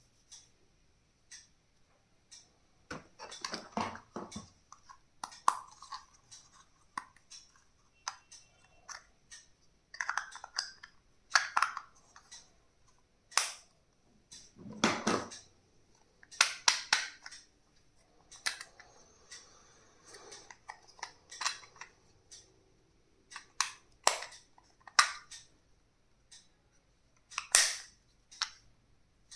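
Hands handling and unpacking plastic stationery: irregular clicks, taps and knocks of plastic parts, with short stretches of crinkling packaging.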